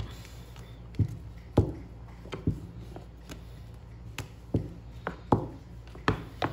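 Plastic rolling pin rolling out fondant on a plastic board, with about nine light, irregular knocks and clacks as the pin and hands come down on the board.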